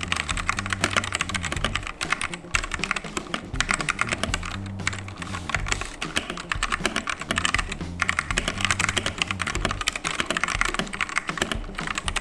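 Typing on a Rexus Daxa M71 Pro mechanical keyboard: a fast, dense run of key clicks, broken by brief pauses about 2.5, 5 and 8 seconds in.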